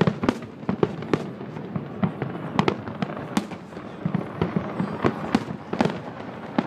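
Distant aerial fireworks shells bursting over the harbour: irregular sharp bangs, roughly two a second, over a continuous low rumble of overlapping bursts.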